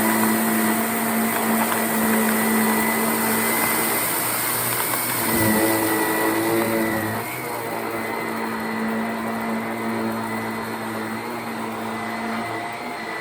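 Shark Rocket stick vacuum running steadily over carpet, picking up a line of rice, with a constant motor whine. Its pitch shifts briefly about halfway through, then settles back.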